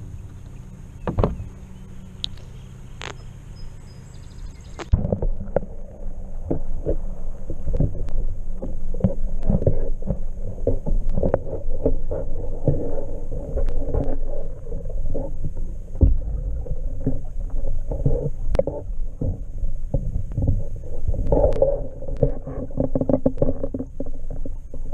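Water heard through a camera housing that goes underwater about five seconds in: the light splashy sound above the surface gives way to a muffled, low rushing rumble of water moving past the housing beside a moving canoe, with many irregular knocks and clicks.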